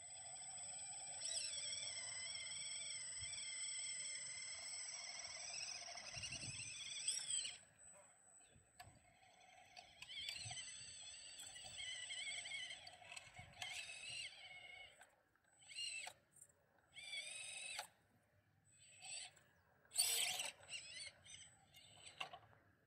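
Axial SCX24 crawler's small brushed electric motor and gearbox whining under throttle. There is one long steady pull of several seconds, then short stop-start bursts of whine as it picks its way over the rocks.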